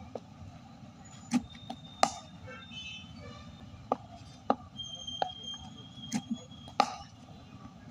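Cricket net practice: about six sharp wooden cracks and knocks of a bat striking the ball, the loudest about two seconds in and again near the end, over a steady low background noise.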